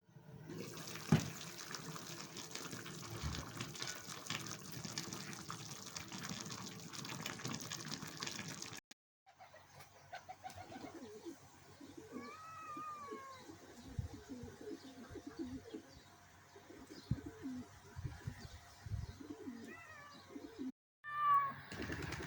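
Farmyard pigeons cooing in short repeated low calls, with a cat meowing a few times. Two hard cuts split the sound into separate clips, and the first part is a steady rustling noise with scattered clicks.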